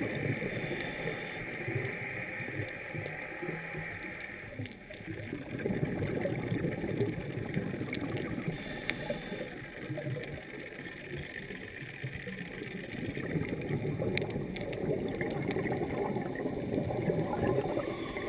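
Underwater noise heard through a GoPro Hero2 dive housing: a steady, muffled gurgling rush of water, with a few faint sharp clicks.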